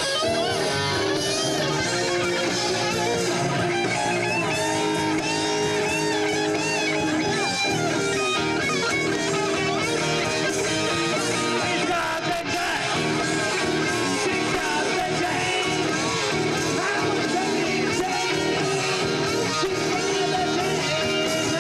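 Rock band playing, with electric guitar to the fore.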